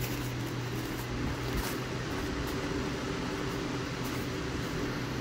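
A steady low mechanical hum of a running motor, with a few faint clicks of a long-haired Chihuahua gnawing a dog chew.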